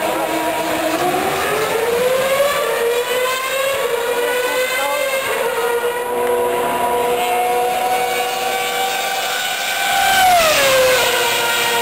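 Formula One cars' V8 engines running at high revs, several high-pitched notes at once, one rising about a second in. Just after ten seconds one car passes close and its note drops sharply as it goes by.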